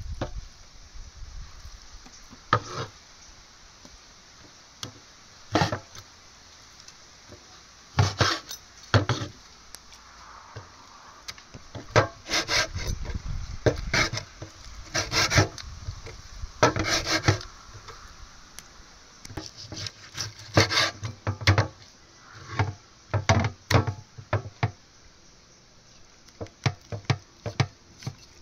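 Irregular knocks and scraping strokes on wood, coming singly and in several short quick runs.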